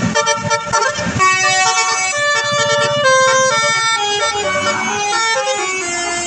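Tour bus's telolet basuri musical horn playing a tune: a run of held horn notes stepping from one pitch to the next.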